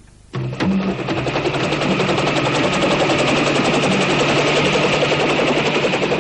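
Rapid automatic gunfire on an animated film's soundtrack: a dense, steady rattle of shots that starts abruptly about a third of a second in, over a low steady hum.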